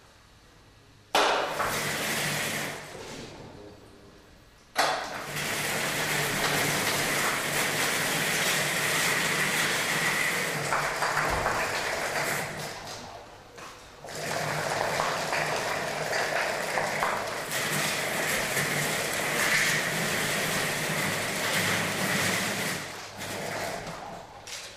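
Remotec bomb-disposal robot's electric motors running as it drives and works its arm, a noisy whir with a faint steady whine. It starts abruptly about a second in and eases off, starts again abruptly near five seconds, dips briefly in the middle, and fades near the end.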